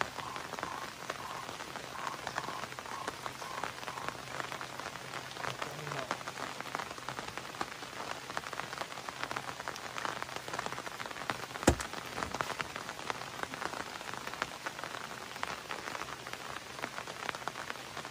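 Steady rain pattering, with many close drops ticking. There is one sharp click about twelve seconds in.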